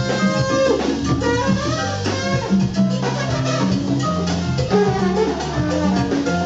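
Live band playing music, with a drum kit and a bass line under melody instruments.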